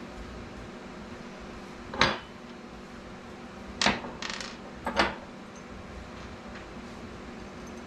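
Small metal tattoo-machine parts knocked and set down on a work surface: three sharp clacks, about two seconds in, near the middle, and a second later, the middle one followed by a short scrape. A steady low hum runs underneath.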